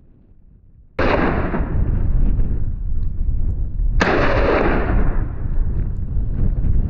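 Two hunting gunshots fired at a running wild boar, about three seconds apart, each a sharp crack followed by a long rolling echo, with a low rumble between them.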